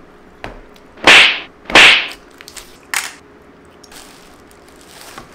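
Two quick, loud whooshes about a second apart, then a single sharp click near three seconds in.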